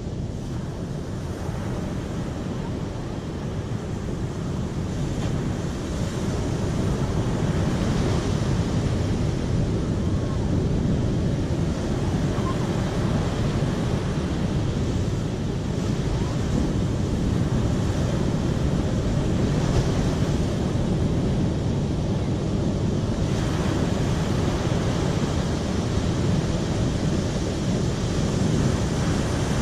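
Steady rushing of flowing water, a dense low hiss that grows a little louder over the first several seconds and then holds even.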